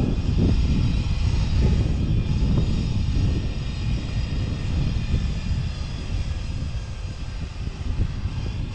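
Wind buffeting the microphone: a loud, uneven low rumble throughout.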